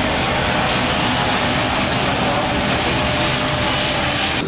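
Airbus A350-900's Rolls-Royce Trent XWB turbofan engines running loud and steady as the airliner rolls along a wet runway, a continuous jet noise with a faint whine over it.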